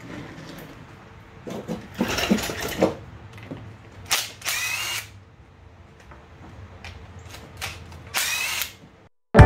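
Cordless drill-driver backing screws out of a Husqvarna 350 chainsaw's housing in three short runs, its motor whine rising as it spins up. A faint steady background hum runs underneath.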